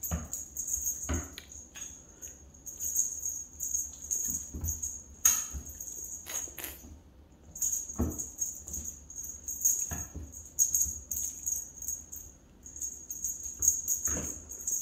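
A small jingle bell on a cat's feather wand toy jingling in bursts as the toy is waved, stopping briefly twice. Scattered knocks and thumps of kittens leaping and landing on a tile floor.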